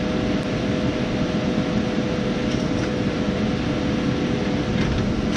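A machine running steadily: an even whir with a constant hum. A short, loud burst of noise comes right at the end.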